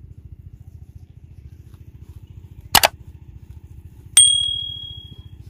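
Subscribe-button sound effect: a sharp double mouse click, then about a second and a half later a single bright notification-bell ding that rings out and fades over about a second. A faint low pulsing hum runs underneath.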